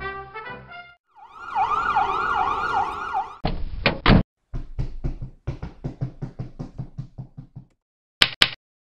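Brass music ends about a second in, and then an ambulance siren wails fast for about two seconds. It is followed by a few loud sharp hits and a run of knocks, about five a second, that fade out, and two sharp clicks near the end.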